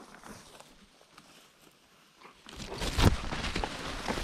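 Footsteps on the forest floor. After about two seconds of near quiet, steps and rustling start again about two and a half seconds in, with one heavy step about three seconds in.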